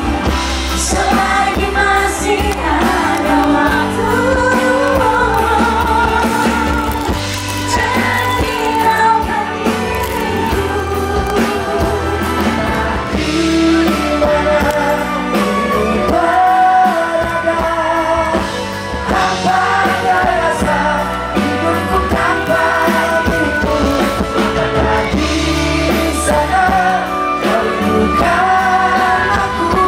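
A band playing a pop-rock song, a singer's voice carrying the melody over drums and a heavy bass line.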